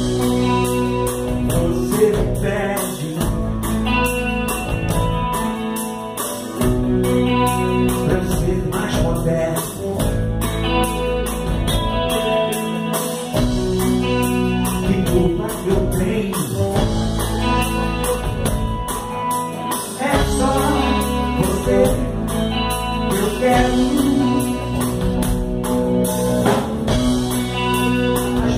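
Live band playing a blues-rock song with electric guitars, bass, drum kit and saxophone, over a steady beat.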